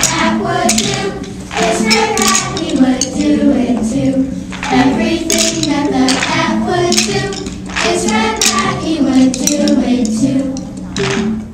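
Wooden rhythm sticks clicking in time over an instrumental melody of steady stepping notes.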